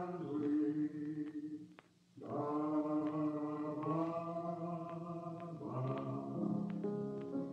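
Wordless choir holding long sustained chords as a radio-drama musical bridge opening the act, with a short break about two seconds in and a change of chord late on.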